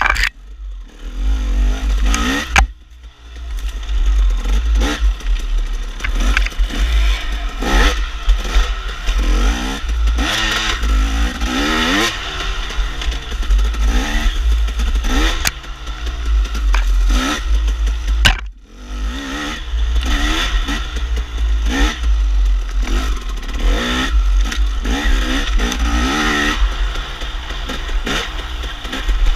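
KTM dirt bike engine being ridden hard, revving up and down over and over, its pitch rising and falling with the throttle. The throttle is shut briefly about a second in and again about two-thirds of the way through. A steady wind rumble on the microphone sits underneath.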